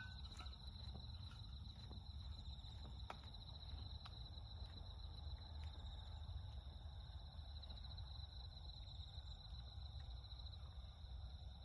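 Faint outdoor ambience: an insect trilling steadily at a high pitch over a low background rumble, with a few faint clicks about three and four seconds in.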